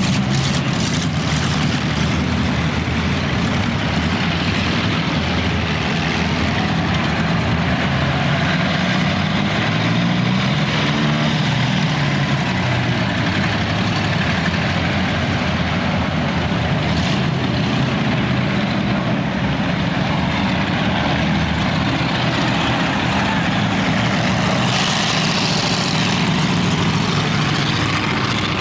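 Several car engines running and revving together, with engine pitch rising and falling near the middle.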